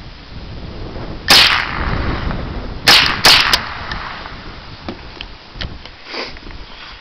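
Remington Nylon 66 semi-automatic .22 rifle firing: one sharp shot about a second in, then a quick group of shots about a second and a half later, followed by lighter clicks and knocks.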